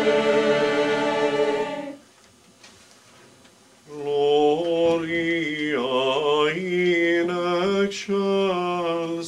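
Mixed choir singing unaccompanied: a held chord cuts off about two seconds in, followed by a pause of about two seconds, then the choir comes back in with a moving phrase.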